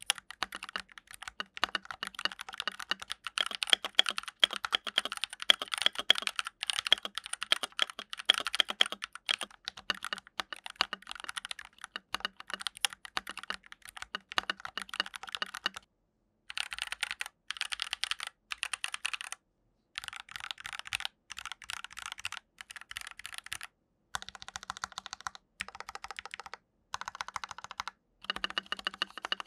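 Typing on a Rakk PIRAH mechanical keyboard: a fast, continuous run of keystroke clacks for about half the time, then several shorter runs of typing broken by sudden silent gaps.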